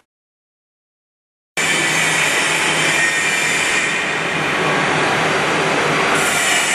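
Heavy metal-working machinery running in a factory hall: a steady, dense mechanical noise with a low hum. It starts suddenly after about a second and a half of silence.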